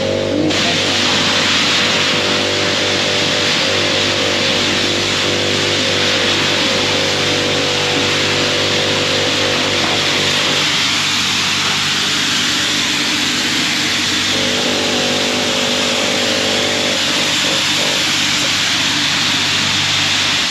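High-pressure car-wash wand spraying water onto a pickup truck's body: a loud, steady hiss of spray with a steady low hum underneath. It cuts off suddenly at the end as the trigger is let go.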